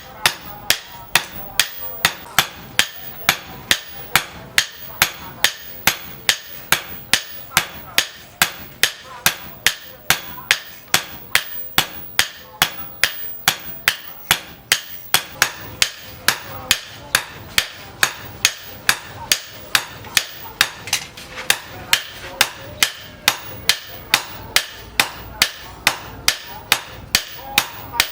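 Hand hammer striking steel on an anvil, forging a machete blade from disc plough steel: a steady rhythm of sharp metallic blows, about two a second, each with a brief ring.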